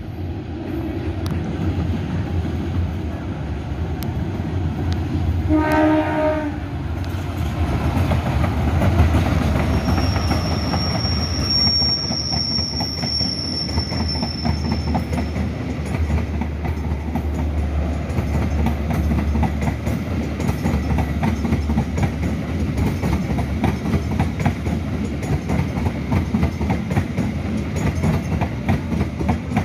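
A KA Logawa passenger train hauled by a diesel locomotive approaches and passes close by with a steady engine rumble. A short horn blast sounds about six seconds in, and a thin high squeal follows for a few seconds. Then comes the rapid clickety-clack of the coaches' wheels over the rail joints as the carriages go by.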